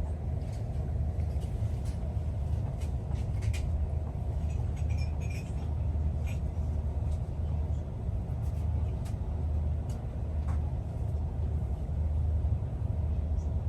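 Steady low rumble of an Airbus A330-300's passenger cabin, with a few faint light clicks.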